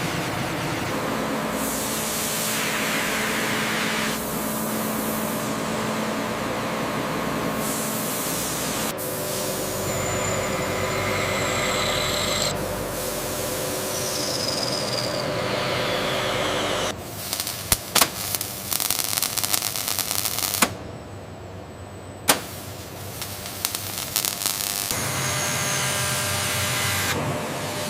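Factory machine noise in a string of cut-together shots: steady hissing and mechanical running that changes character at each cut, with a stretch of sharp clicks and crackles about two-thirds of the way through.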